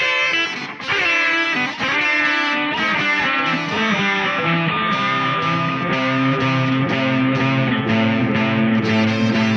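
Electric guitar playing with distortion: a run of picked notes, then held chords ringing on over a steady low note.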